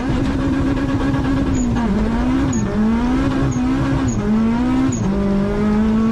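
Car engine running at high revs. Its pitch climbs steadily and then drops sharply about five times in a few seconds.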